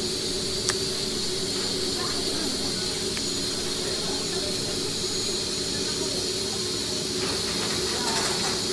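Steady hiss with a high whine and a low hum from running shop machinery. Near the end comes a short rough scraping as a hand deburring tool is worked around the edge of a hole in thin aluminium sheet.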